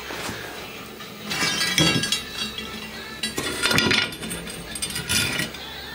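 Steel leaves of a broken old rear leaf spring clinking and scraping against each other and the concrete floor as they are handled, in about three short bursts of clatter.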